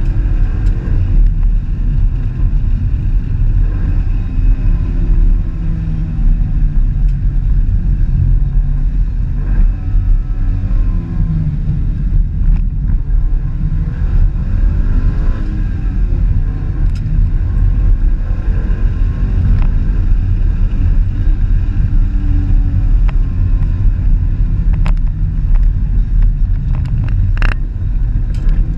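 Car driving: a steady low engine and road rumble, with the engine note rising and falling several times as speed changes, and a few sharp knocks near the end.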